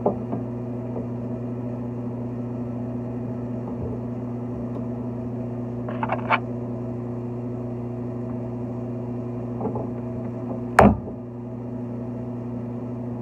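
A steady mains-powered motor hum. A couple of quick clicks come about six seconds in, and one sharp knock sounds near the end, most likely from fitting parts of the shower valve trim.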